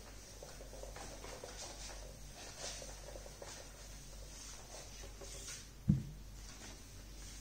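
A whiteboard being wiped with a duster: soft, scratchy rubbing in repeated strokes as the board is erased. A single sharp low thump about six seconds in.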